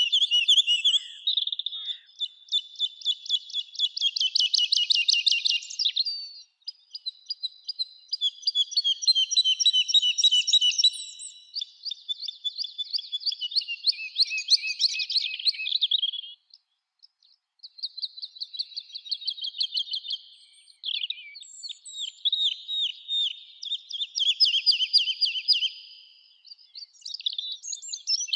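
A songbird singing long phrases of rapid trills and chirps, broken by short pauses.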